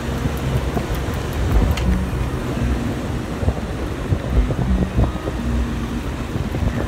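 Steady wind buffeting and road noise from a car driving along a paved road, picked up by a camera mounted low on the outside of the car body.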